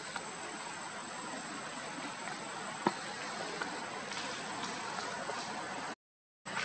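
Steady outdoor background hiss with a constant high-pitched tone over it and a few faint clicks, the sharpest about three seconds in; the sound cuts out completely for about half a second near the end.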